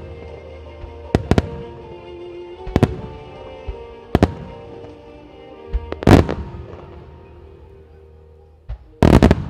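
Starmine fireworks: aerial shells bursting with sharp bangs every one to two seconds, the loudest about six seconds in and a quick run of bursts near the end.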